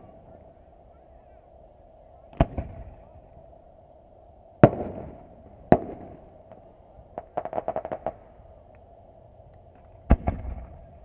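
Aerial firework shells bursting at a distance. Single sharp booms come about two and a half, four and a half and five and a half seconds in, each trailing off in an echo. A quick string of crackling pops follows at seven to eight seconds, and two more booms come close together near the end.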